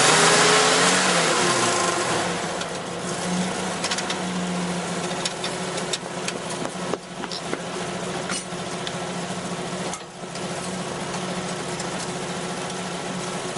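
Portable fire pump's engine running steadily just after starting, its speed dropping and settling over the first couple of seconds. A few short knocks and clicks are heard later on.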